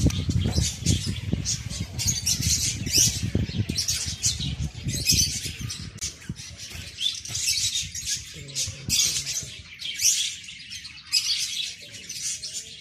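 A flock of budgies chirping and chattering in an aviary, a dense stream of short calls with no pause. A low rumble runs under the first half and fades out.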